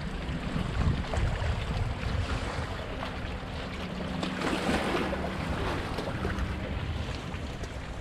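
Wind buffeting the microphone at an open lakeshore, a gusty low rumble that swells about halfway through, with a faint steady low hum underneath.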